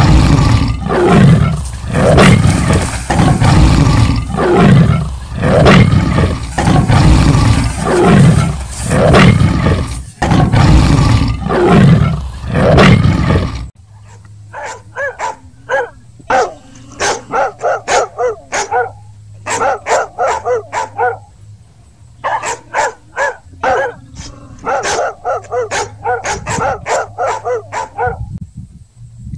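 Loud animal roaring, one roar about every second, that cuts off suddenly about halfway through. A dog then barks in quick runs of several barks with short pauses between them, over a faint low hum.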